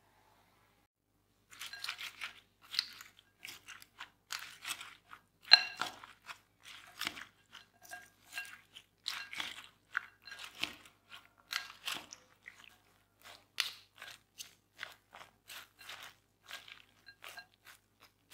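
Shredded raw potato and beaten egg being stirred and tossed with a wooden spoon in a glass bowl. The strands make wet, crisp rustling and squishing in irregular strokes, and now and then the spoon lightly clinks the glass. The stirring starts about a second and a half in.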